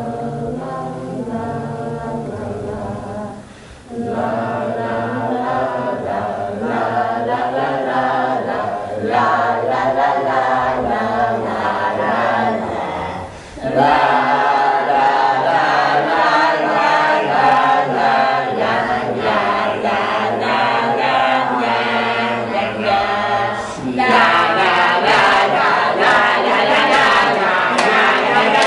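A group of voices singing together without instruments, in long wavering phrases that break off about 4, 14 and 24 seconds in, getting louder after each break, the last part higher.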